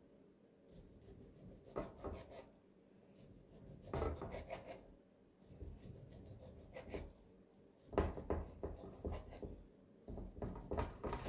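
Knife sawing through a baked meatloaf and knocking down onto the cutting board, in several short spells of cutting with pauses between slices.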